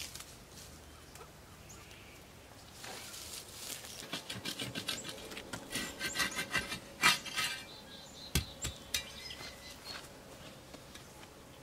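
Light clattering and clicking from materials being handled, with one louder knock about seven seconds in and two sharp knocks just after. Faint birds and insects are in the background.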